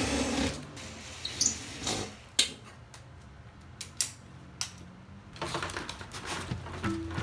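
Scattered sharp clicks and knocks, a second or two apart, over a low steady hum, with a short hiss at the start.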